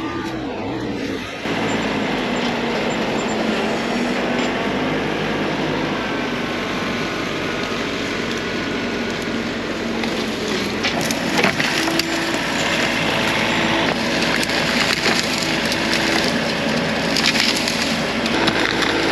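Bobcat E42 mini excavator working, its engine running steadily under hydraulic load with a whine that rises and falls, while trees and brush crack and splinter in its bucket, the sharpest cracks coming about halfway through and again near the end.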